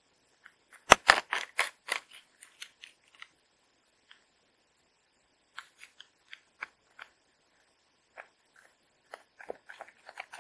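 Crinkly plastic food pouch crackling in a quick run of sharp clicks about a second in, then scattered clicks and scrapes as a metal spoon scrapes cooked rice out of the plastic pouch into a metal camping pot.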